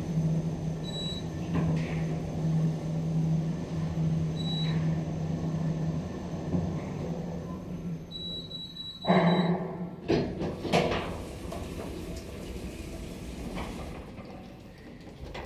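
Kone MonoSpace machine-room-less traction lift travelling down with a steady low hum, with two short high beeps and then a longer beep as it comes to a stop. About nine seconds in the car doors slide open with a rush and some clicks.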